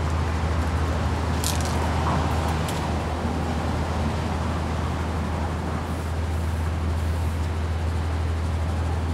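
Steady low rumble of city street traffic. A short hiss about a second and a half in, typical of a spray-paint can being sprayed.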